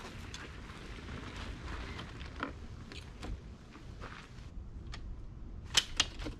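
A fold-over rooftop tent being levered open with a telescoping aluminium ladder: rustling and light knocks, then two sharp metal clacks, a fraction of a second apart near the end, as the ladder is set against the tent's base.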